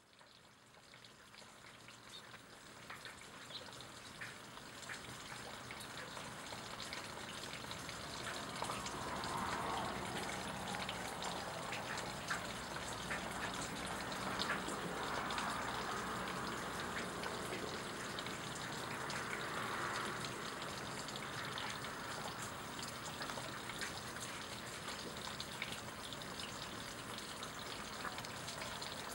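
Steady rain falling, a continuous hiss sprinkled with small drop ticks and drips, fading in over the first few seconds with a few broader swells around the middle.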